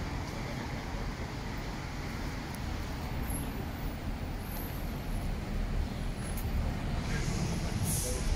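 City street traffic: a large vehicle runs close by with a steady low rumble, and there are a few short hisses near the end.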